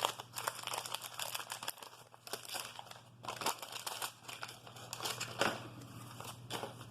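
Wax-paper wrapper of a 1988 Topps baseball card pack crinkling and rustling in the hands as packs are torn open, in quick irregular crackles that die down near the end.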